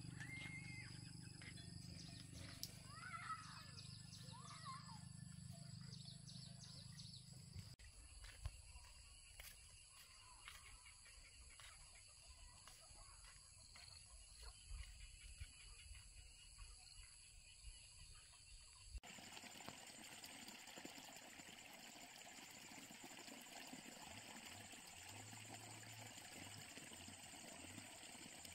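Faint rural outdoor ambience with a few birds chirping in the first few seconds. The background changes abruptly twice, about 8 and 19 seconds in.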